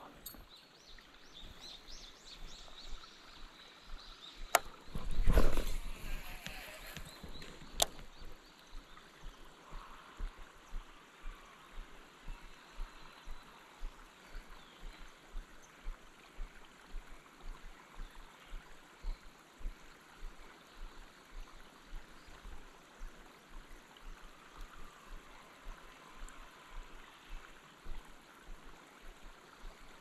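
Baitcasting reel being worked: a click and a short louder rush about five seconds in, another click a couple of seconds later, then soft regular ticks about twice a second as the reel is cranked in a slow retrieve, over a faint murmur of stream water.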